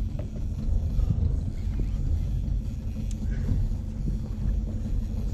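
Small fishing boat's engine running at idle, a steady low rumble with a faint hum.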